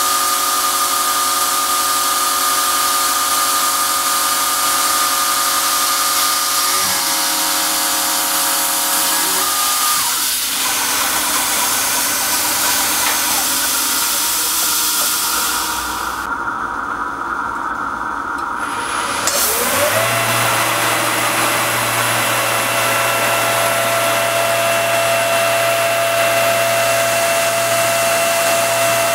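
CNC milling machine (a converted RF45 mill) running an end mill through a 1911 pistol slide, a steady machine tone over a constant high hiss. Partway through the hiss drops out for a few seconds. Then the spindle winds up to a new, higher steady pitch as a smaller tool cuts the front panels.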